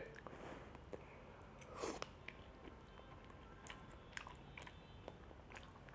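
Faint chewing of a mouthful of microwaved mac and cheese: soft mouth clicks and smacks, the loudest about two seconds in.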